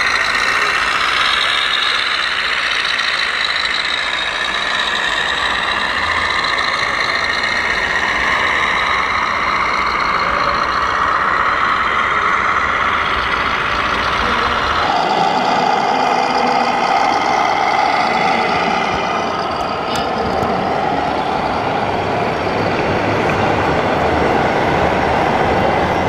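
1/14-scale RC trucks with electronic sound modules playing diesel truck engine sounds over hall noise. The sound changes abruptly a little past halfway through.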